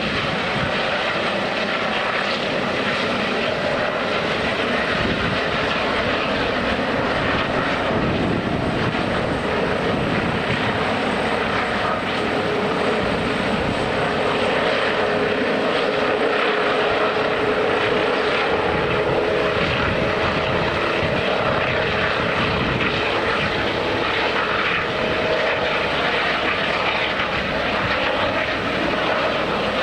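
Helicopter running steadily, a loud even engine and rotor noise; a steady tone joins about twelve seconds in.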